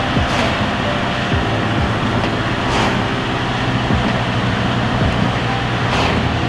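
Audi A4 B9 with its 2.0 TFSI turbocharged four-cylinder engine driving on the road: a steady hum and tyre and road noise, with a brief rush of noise three times.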